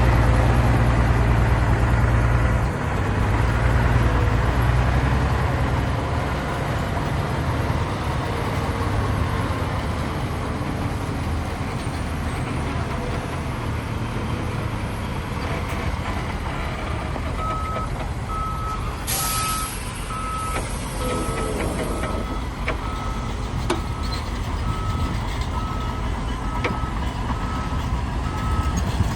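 Diesel engines of heavy earthmoving machinery running with a deep drone, loudest in the first half. A little past halfway a reversing alarm starts, sounding evenly spaced beeps at one pitch. A hiss of air runs for about three seconds just after the beeping begins.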